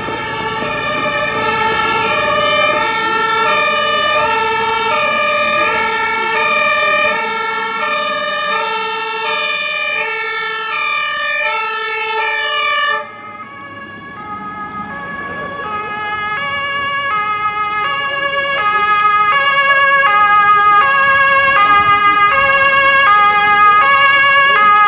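German fire-engine two-tone sirens (Martinhorn) sounding the alternating high-low call. The first siren is loud and cuts off abruptly about 13 seconds in. A second two-tone call, with overlapping tone pairs, then grows steadily louder toward the end.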